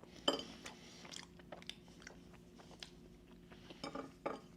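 Faint chewing of a mouthful of blueberry-filled protein pastry: soft, irregular mouth clicks and smacks.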